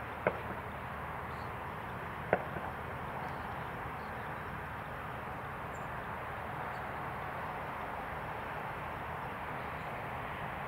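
Light aircraft engine running steadily at a distance, heard through a steady outdoor noise. Two short sharp clicks come about a quarter second and two seconds in.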